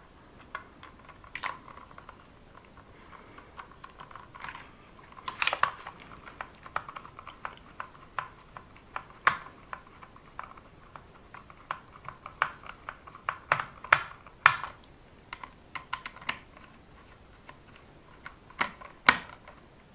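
Irregular small clicks and taps of a hex screwdriver and small plastic and metal parts as screws are driven and parts fitted on an RC car's steering linkage, with a few louder knocks scattered through.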